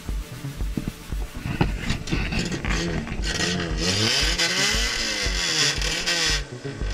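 Citroën AX's petrol engine revving hard, its pitch rising and falling several times, then stopping suddenly near the end.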